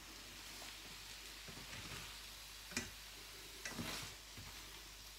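Plastic spatula stirring braised eggplant in a stainless steel frying pan, with soft scraping and a few sharp clacks against the pan: one about two and a half seconds in and a small cluster near four seconds.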